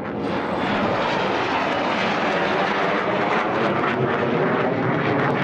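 MiG-21 jet fighter flying past, its single turbojet engine heard as loud jet noise that swells over the first second and then holds steady.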